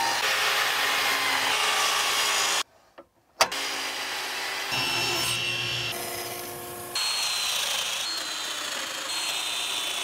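Power saws cutting walnut in quick edited succession. First a sliding miter saw runs and cuts through a board, breaking off suddenly about two and a half seconds in. After a brief gap and a click, more cuts follow, including a bandsaw slicing a walnut piece.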